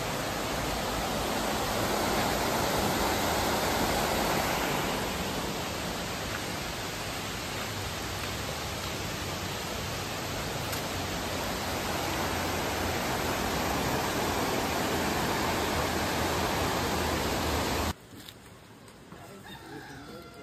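Steady rushing of a stream flowing over rocks, cutting off suddenly near the end.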